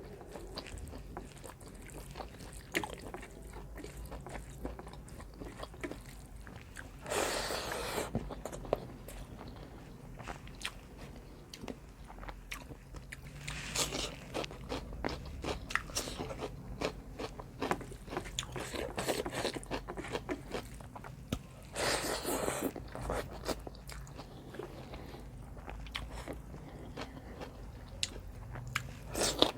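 A person eating pork curry with rice, with steady chewing, wet mouth clicks and frequent crunches. Louder bursts of crunching come about seven, fourteen and twenty-two seconds in.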